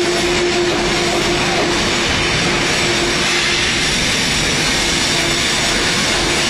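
Compression garbage truck's hydraulic compactor running loud and steady while its rear packer controls are worked, with a steady whine that breaks off about five seconds in.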